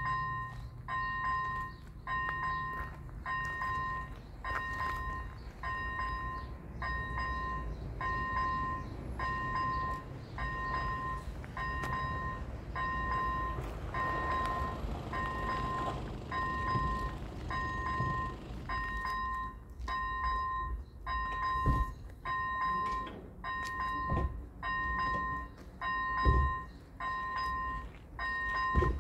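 Electronic level-crossing warning bell ringing steadily, a two-tone ding repeating about once a second. A few dull knocks come near the end as the crossing barriers start to come down.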